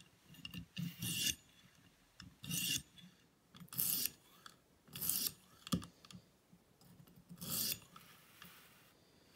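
A 600-grit stone on a guided knife sharpener drawn across the edge of a thin Victorinox paring knife in about five separate short, rasping strokes with pauses between, and one sharp click near the middle. These are light clean-up strokes to take off the last of the burr.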